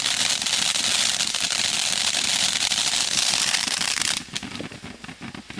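Ground firework fountain spraying white crackling sparks: a dense, continuous crackle and hiss that drops away suddenly about four seconds in, leaving a faint sputter.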